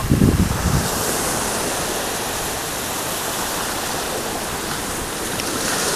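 Small waves washing onto a pebble-and-cobble beach, a steady even hiss of surf. A brief low rumble in the first second.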